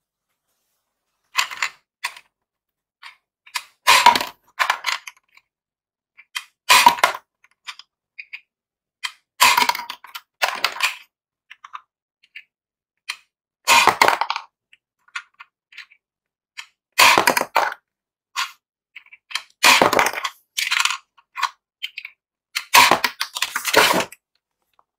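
Plastic tabletop finger basketball game being played: a finger-pressed plastic launcher lever flicks small plastic balls at the hoop, and each shot sets off a cluster of sharp clacks and light rattles as the ball strikes the plastic backboard and rim and bounces back down the court. About eight such shots, roughly every three seconds, with silence between.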